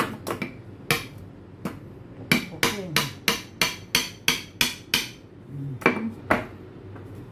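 Knife point jabbed repeatedly into the sealed metal lid of a tin-can coin bank to pierce it open: sharp metallic knocks, a few spaced strikes, then a fast run of about ten in the middle, and two more near the end.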